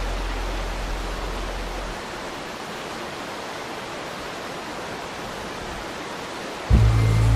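Steady rushing of a waterfall. A low droning tone underneath fades out about two seconds in, and loud music with deep bass notes comes in suddenly near the end.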